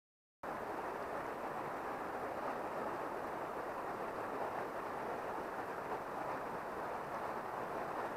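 Shallow stream running over riffles and stones, a steady rushing of water that starts abruptly about half a second in.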